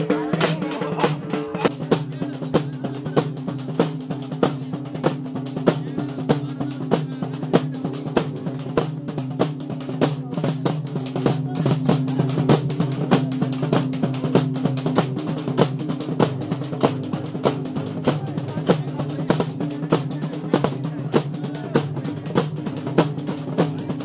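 Band of large double-headed drums beaten with sticks, playing a fast, driving, continuous rhythm with a steady low tone held underneath.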